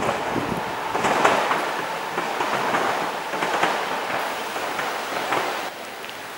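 Pesa Elf II electric multiple unit rolling past, a steady rush of running noise with repeated clacks of its wheels over rail joints. The train noise cuts off suddenly near the end, leaving a quieter open-air background.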